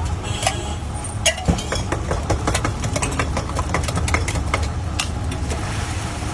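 Steel utensils clinking in a quick string of sharp metallic taps at a griddle stall, over a steady low rumble.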